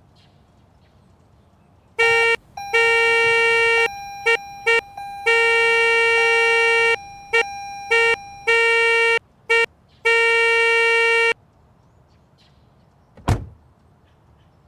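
Car horn honked in an irregular string of about ten blasts, some quick taps and some held for a second or more. A single dull thump follows a couple of seconds after the last honk.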